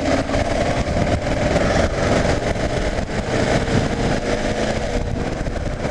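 Kawasaki KLR 650's single-cylinder engine running steadily while the motorcycle cruises, under a constant rush of wind and wet-road noise.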